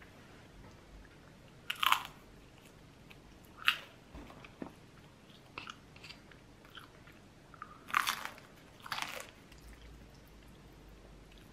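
Close-up crunching and chewing of battered deep-fried pork (tangsuyuk), with loud crisp bites about two seconds in, again near four seconds, and twice around eight to nine seconds, between softer chewing clicks.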